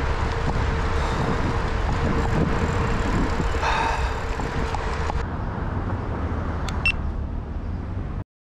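Wind rushing over the microphone of a camera on a moving bicycle, with rolling noise from the tyres on pavement. A couple of short high chirps come near the end, and the sound cuts off suddenly.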